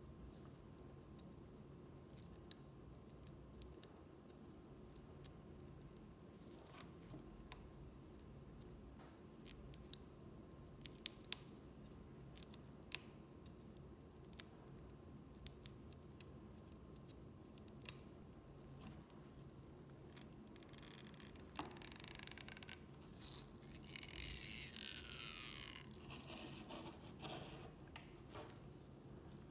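Small tools on an opened smartphone: scattered light clicks and taps, then two louder scratchy, rasping stretches of about two seconds each near the end, the second falling in pitch.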